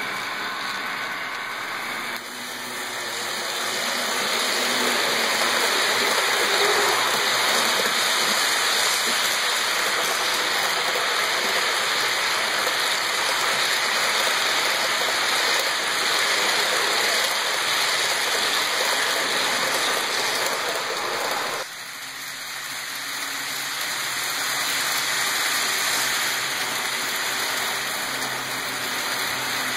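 HO-scale model train rolling along the layout track: a steady rushing rattle of small metal wheels on rails. It drops suddenly about 2 seconds in and again about 22 seconds in, then builds back up.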